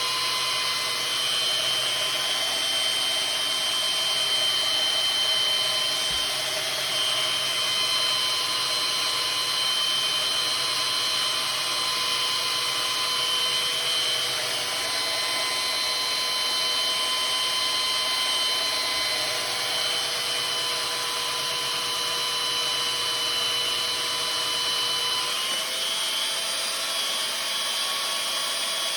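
Electric power tool running steadily with a high whine while sharpening a maul's blade; its pitch shifts slightly near the end.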